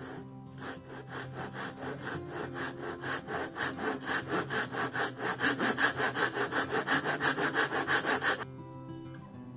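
Fine-toothed hand saw cutting across a small aspen block in quick, even strokes, about five a second, that grow louder before stopping abruptly shortly before the end.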